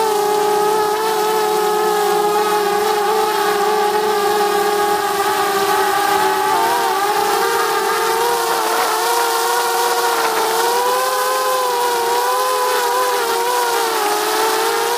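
DJI Mavic Mini quadcopter's propellers and motors whining close up. It is a steady whine of several pitches that waver and step up a little about seven seconds in.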